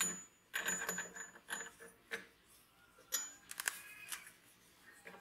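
Small machined steel parts of a corking machine clinking and knocking against each other and against the steel vise jaws as they are handled and set in place: a series of sharp metallic taps, several with a short ring.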